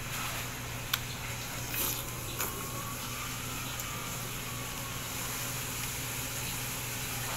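Juice being sucked by mouth from a star apple squeezed in the hand: two short slurps a little after a second and a half in, with a sharp click about a second in. Beneath it all, a steady low hum and hiss.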